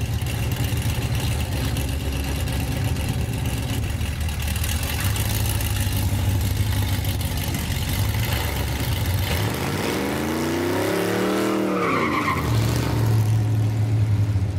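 A drag car's V8 rumbling in the burnout box with tyre-spin hiss, revving up and back down once about ten seconds in, then settling back to a steady rumble.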